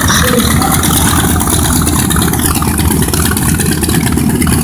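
Six-cylinder piston engine and propeller of an MXS aerobatic airplane running steadily, with a slight drop in pitch about halfway through.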